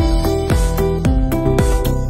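Background music: an electronic track with a steady kick-drum beat under held melodic notes.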